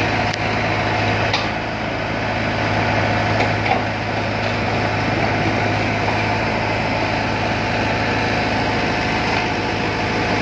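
Mini excavator's diesel engine running steadily with a deep hum, as the bucket digs into broken concrete and soil, giving a few short knocks.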